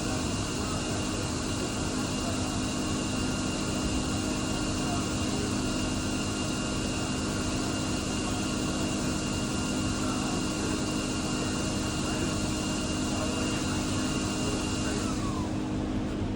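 Steady hiss and sizzle of a welding arc laying a bead, over a low steady hum. The hiss stops abruptly about fifteen seconds in, as the arc is broken.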